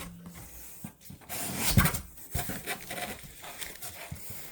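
Tools and a toolkit being handled and set out: irregular knocks, clicks and rustles, with one louder knock about two seconds in.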